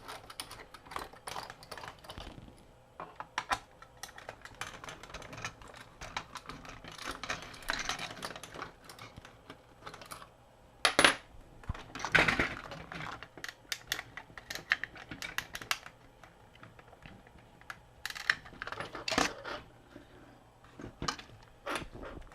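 Hard plastic parts of an action figure clicking and knocking as they are handled and pried at, with a few louder clacks around halfway and near the end.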